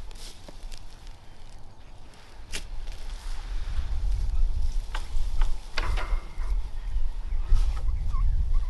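Wind rumbling on the microphone, getting stronger about halfway through, with dry tall grass crackling and rustling underfoot and a few short bird calls near the end.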